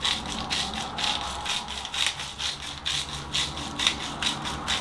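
Salt being dispensed onto food: a run of quick gritty strokes, about four a second.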